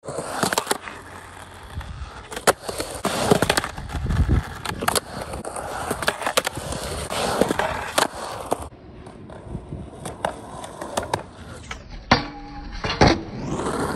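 Skateboard rolling and carving on concrete, with many sharp clacks of wheels and trucks striking the coping. Near the end, two loud knocks about a second apart as the board meets a low metal flat bar, with a brief grinding tone between them.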